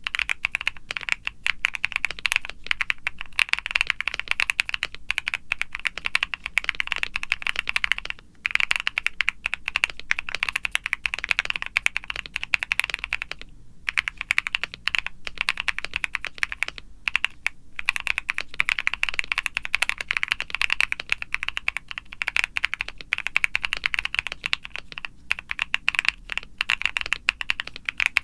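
Steady, fast typing on a mechanical keyboard with lubed Akko Creamy Lavender Pro tactile switches, a polycarbonate plate in a foam-dampened aluminum Luminkey75 case, and PBT keycaps: a dense run of keystrokes. It stops briefly twice, about eight seconds in and again near the middle.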